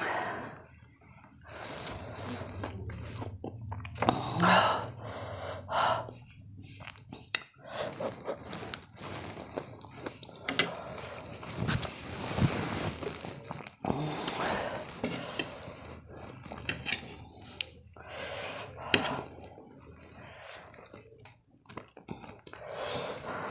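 A person breathing in sharply and sniffling against the burn of 2x-spicy Korean noodles, with mouth sounds between breaths. Near the end comes a metal fork clicking and scraping on the plate.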